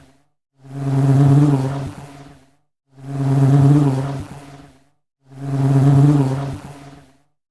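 Honey bee buzzing in passes that swell and fade away, three times, each about two seconds long with a brief silence between.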